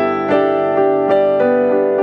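Background music: a piano playing a gentle melody, a new note struck about three times a second.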